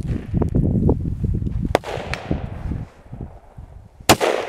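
Rifle handling: clunks and rustling as the SKS carbine is settled on a wooden bench. About four seconds in comes a single loud rifle shot, a 7.62×39 FMJ round fired from the SKS with its muzzle brake removed, with a short echo after it.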